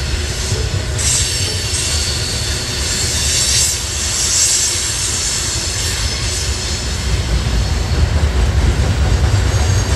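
Loaded coal hopper cars of a CSX freight train rolling past: a steady low rumble of steel wheels on rail, with a high wheel squeal swelling and fading in the first half.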